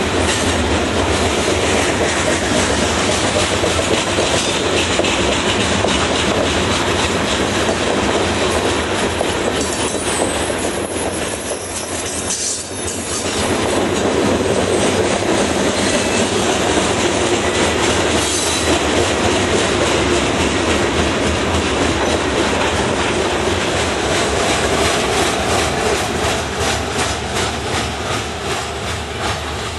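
Freight train of covered hopper cars rolling past close by: a steady rumble of steel wheels on rail with a regular clickety-clack over the rail joints, clearest near the end as the sound starts to fade.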